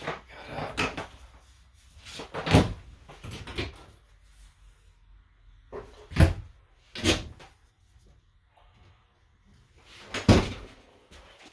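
Cabinet doors in a travel trailer's bathroom being opened and shut: a series of knocks and clicks a second or more apart, with the loudest latches about halfway through and near the end.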